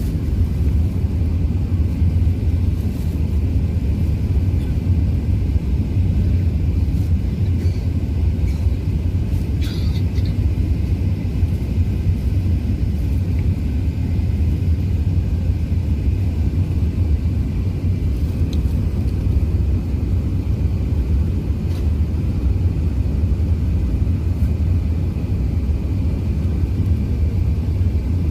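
Steady low rumble of engine and airflow inside an Airbus A380-800's passenger cabin, with a faint thin steady tone above it and a few small clicks and a brief chirp about ten seconds in.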